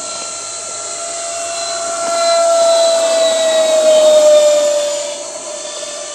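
Radio-controlled model airplane flying past overhead: a high-pitched motor whine over a hiss grows louder, drops in pitch as the model passes about four seconds in, then fades.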